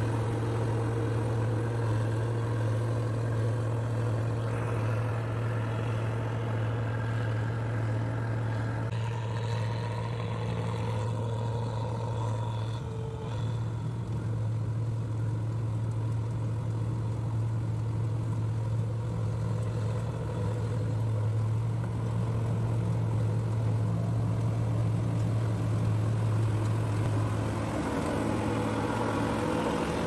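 New Holland combine harvester's diesel engine running steadily under load while it harvests rice, a continuous low drone with the clatter of the threshing machinery over it.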